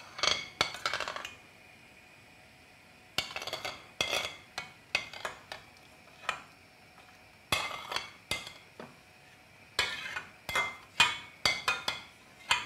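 Metal spoon scraping and clinking against the inside of a stainless-steel frying pan in four short bouts with quiet gaps between them, scraping out a thick sour-cream gravy.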